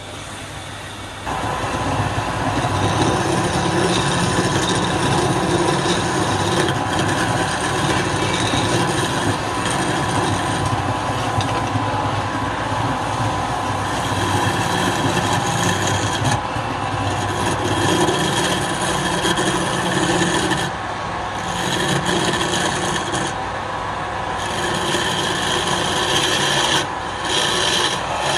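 Wood lathe running, with a turning tool cutting the spinning wood: a steady scraping rasp over a constant machine hum. It starts about a second in and eases off briefly a few times.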